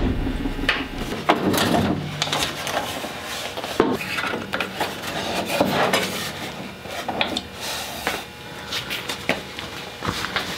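Irregular wooden knocks and rubbing, with several short sharp clacks among scraping, shuffling noise.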